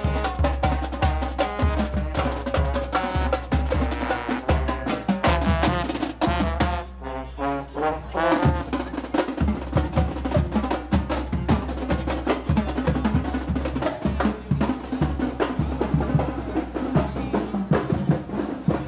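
Upbeat live band music: saxophones and other horns playing a tune over drums and percussion.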